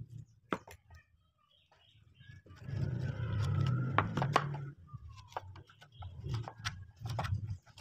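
Steel wood chisel, pushed by hand into the drilled holes of a mortise in a timber beam, prying and paring out the wood left between the holes: a series of sharp clicks and cracks of wood fibres snapping, with a louder, longer scraping stretch in the middle.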